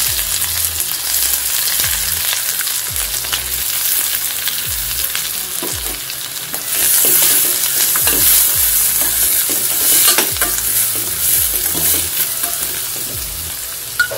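Sliced onions sizzling in hot coconut oil with mustard seeds in a stainless steel pan, being stirred; the sizzle gets louder about seven seconds in.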